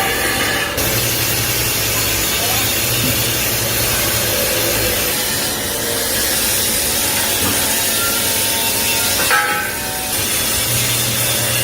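Loud, steady metalworking machinery noise, like steel being cut, with a low hum that comes and goes.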